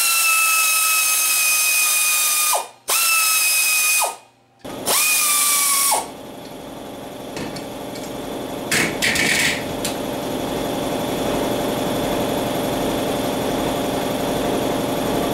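Pneumatic air ratchet running in three short bursts, each a high whine, spinning out the clutch pressure-plate bolts on a VW Type 1 engine. After the bursts comes a steady low hum, with a brief clatter about nine seconds in.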